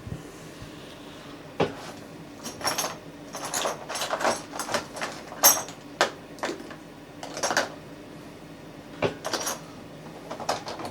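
Rummaging among small hard objects and tools, searching for a marker pen: irregular clinks, knocks and clatters as things are picked up, moved and set down, the loudest knock about halfway through.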